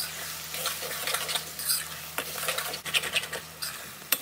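A long metal spoon stirring chopped garlic and onions through hot oil in a steel wok, scraping and clinking against the pan over the sizzle of frying. The garlic has just gone in to fry with the onions and ginger.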